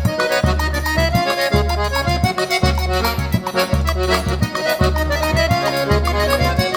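Instrumental forró pé de serra: an accordion plays the melody over a steady low beat that comes about twice a second. There is no singing.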